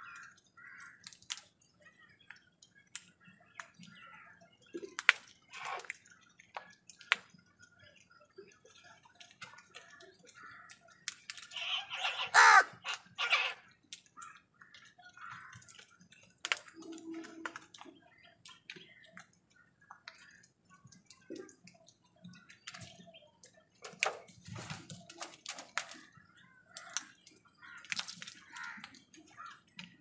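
House crows pecking grain off a concrete floor, their beaks tapping in scattered clicks, with a short run of loud caws about twelve seconds in.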